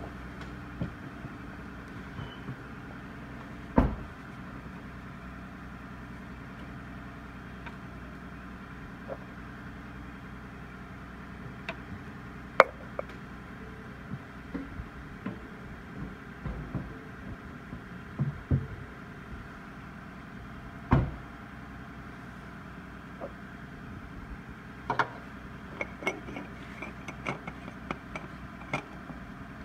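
A steady low mechanical hum with scattered sharp clinks and knocks of metal tools and parts being handled; the loudest come about 4, 12 and 21 seconds in.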